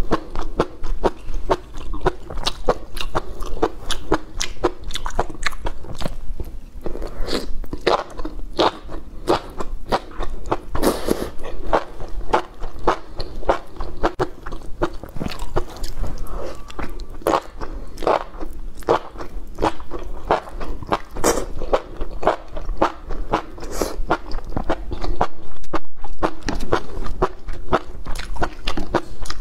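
Close-miked chewing of enoki mushrooms in spicy chili-oil broth: a dense, continuous run of quick wet mouth clicks and crunches, a little louder near the end.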